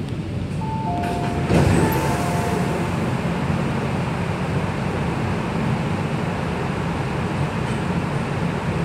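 MTR K-train door-open sequence: a two-note descending chime sounds twice as the train's doors slide open with a sudden rush about a second and a half in. Under it runs the steady low hum of the stopped train.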